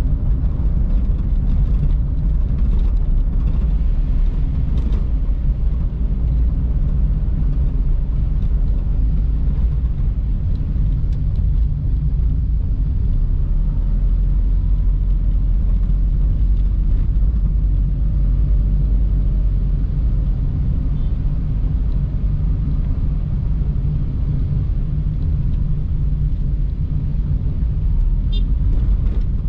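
Steady low rumble of a car driving along a road, engine and tyre noise running evenly throughout.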